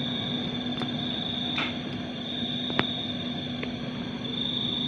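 Steady hum with a thin high whine and a faint hiss from the LG two-door refrigerator's cooling system running under test after a leak repair, with a few light ticks.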